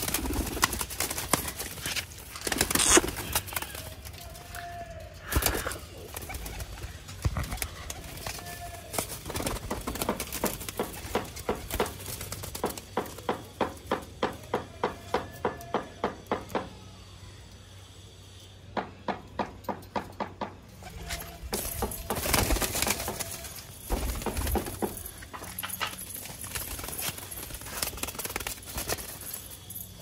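Domestic pigeons cooing in a wire loft, with wings flapping and a run of quick sharp clicks in the middle.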